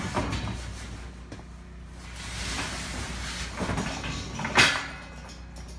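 Steel rack cart's rail wheels rolling along the steel rails of a welded sled, a rattling roll with a sharp metal clank about four and a half seconds in.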